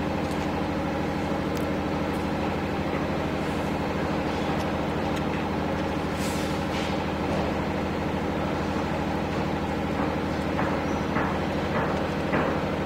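Steady engine-like motor hum at a constant speed, with a few faint light clicks in the last few seconds.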